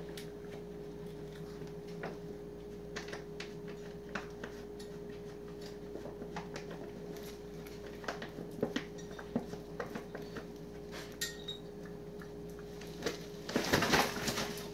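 Plastic dog food bag crinkling with scattered small clicks and ticks as a small dog noses around inside it, then a louder burst of rustling about a second before the end as the dog pulls its head back out and the bag shifts.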